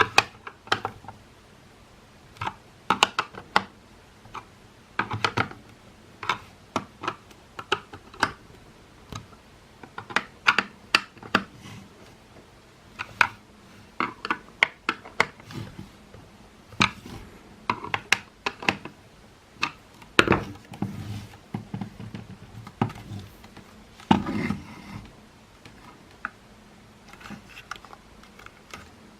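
Irregular clicks, taps and knocks of the hard plastic parts of a Makita CL108FD cordless stick vacuum being handled and fitted together, with a short scraping rub toward the end.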